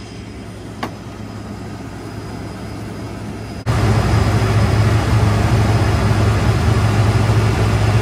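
John Deere combine's diesel engine idling steadily while the machine stands stopped for repair. It is moderately loud at first, with a single click about a second in, then much louder and closer after an abrupt cut about three and a half seconds in.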